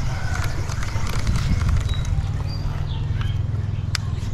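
Daiwa Tatula SV TW baitcasting reel being cranked to retrieve a skipped Texas-rig lure, with light repeated clicking over a steady low rumble and one sharp click about four seconds in.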